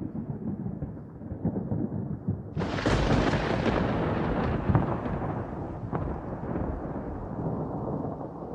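A rumbling, thunder-like noise with a sudden crash about two and a half seconds in, which then slowly fades.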